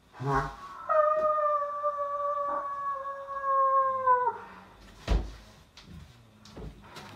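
A person doing a wolf howl impression: a short cry, then one long howl held steady for about three and a half seconds that drops in pitch as it ends. A thump follows about five seconds in.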